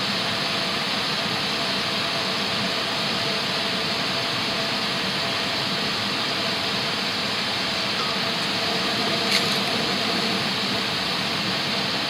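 Handheld propane torch burning with a steady hiss, its flame held inside a waste-oil furnace's fire pot to heat and light diesel.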